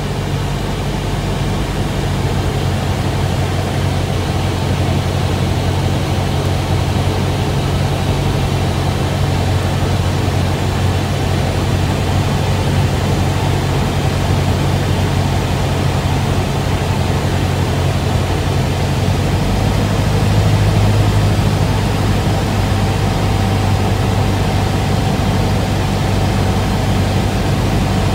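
Cessna 172's piston engine and propeller droning steadily inside the cockpit, with airflow noise over the cabin, on final approach to land. The drone grows a little louder about twenty seconds in.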